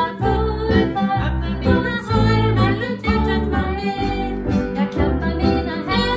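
Two women singing together, accompanied by a strummed acoustic guitar.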